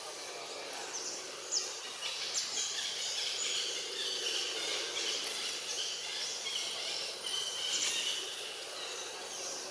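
Tropical forest ambience: birds chirping with many short, high calls, some falling in pitch, over a steady background of insects.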